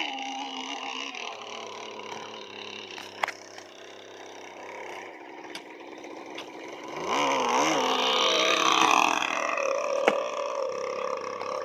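Radio-controlled model boat's motor running out on the water. It gets louder and rises and falls in pitch about seven seconds in, with a couple of sharp clicks.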